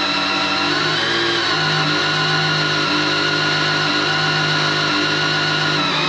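Electric drill running steadily at low speed, turning a rebuilt Volvo Penta 3.0 (GM 181) four-cylinder's oil pump through a priming tool to push oil pressure through the engine before first start. Its pitch drops slightly about a second and a half in.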